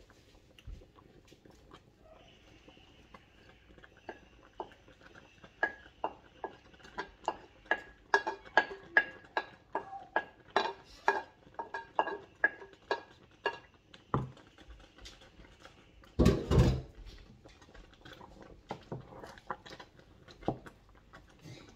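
A run of quick clinks of a utensil against a metal pot, about two or three a second, each with a short ringing tone. A single louder knock follows about sixteen seconds in.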